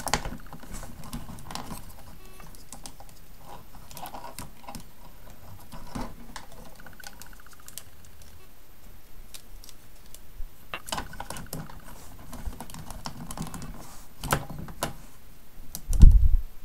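Hard plastic parts of a Bionicle-style building-toy figure clicking and rattling in scattered bursts as hands reposition its ball-jointed limbs and armour pieces. A dull, loud thump near the end.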